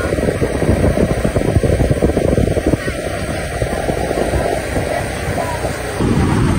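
Wind buffeting the microphone, with the rumble of a vehicle travelling on a dirt road: a dense, low, uneven noise with no clear engine note.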